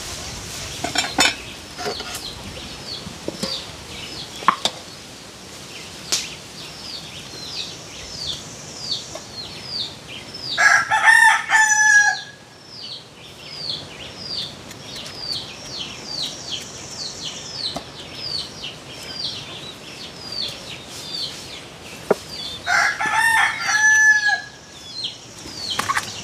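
A rooster crowing twice, about twelve seconds apart, each crow lasting a second and a half or so. Under it, another bird chirps over and over, about two short falling chirps a second, and a few light knocks come in the first few seconds.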